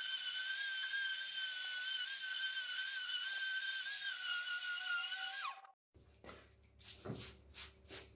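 Random orbital sander running on a raintree wood slab, a steady high whine that winds down with a falling pitch about five and a half seconds in as it is switched off. A few faint, irregular pulses over a low hum follow.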